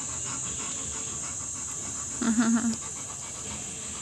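Heavily pregnant Rottweiler panting in quick, even breaths. About two seconds in there is a brief, louder pitched sound that wavers slightly.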